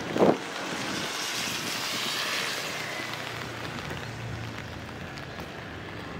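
A brief loud thump just after the start, then a vehicle passing on the rain-wet street: the hiss of its tyres swells for about two seconds and slowly fades away.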